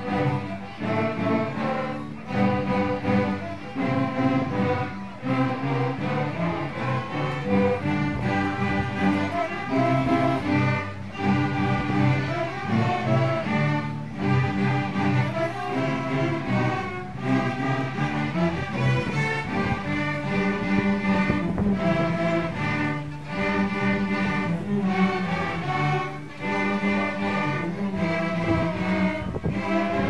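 A children's string orchestra of violins and cellos playing a piece together, in sustained bowed phrases with short breaks between them.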